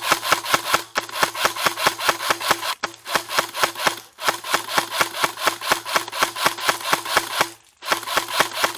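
Airsoft electric gun firing long full-auto bursts, about eight shots a second over the whine of its gearbox motor, with short breaks about three, four and seven and a half seconds in.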